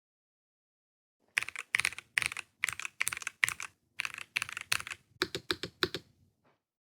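Keys of an ROG Azoth mechanical keyboard being pressed in a steady rhythm, each press a sharp clack on the way down and back up. About five seconds in, the strokes come quicker and sound deeper.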